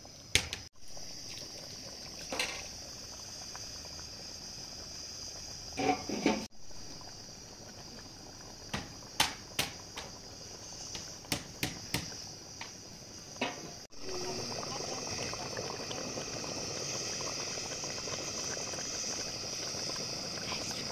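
Thick red fruit puree bubbling in an aluminium pot over a gas burner. Scattered sharp pops come first, and about two-thirds of the way through it turns to a dense, steady bubbling and plopping.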